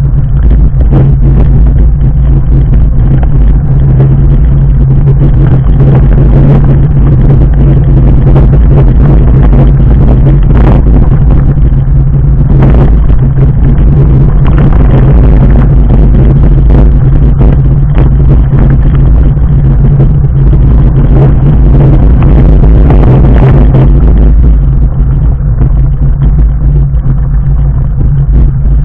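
Fat bike with 4-inch Schwalbe Jumbo Jim tyres rolling down a loose rocky track: a continuous loud rumble and rattle on the camera, with frequent sharp knocks as the tyres and frame jolt over the stones.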